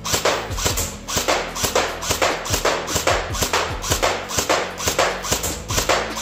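JG T3 airsoft electric rifle firing single shots through a chronograph, each a sharp crack with a short echo, about three a second. The shots read around 325 to 330 FPS.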